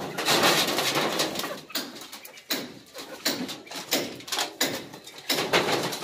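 Birds calling in a loft, mixed with loud rustling and sharp knocks close to the microphone.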